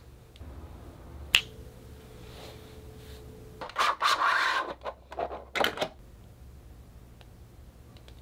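Clear plastic packaging crinkling and rustling in loud bursts for about two seconds as an iPad case is slid out of its sleeve, after a single sharp click about a second in.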